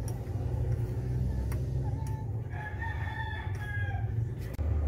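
A rooster crowing once, starting about two seconds in and lasting about two seconds, over a steady low hum. A couple of sharp clicks sound before and after the crow.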